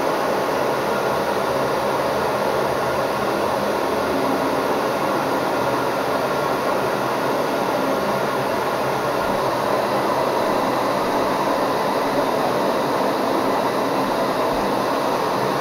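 Handheld hair dryer running steadily, blowing hot air at a balloon; a constant, unchanging rush of fan and airflow noise.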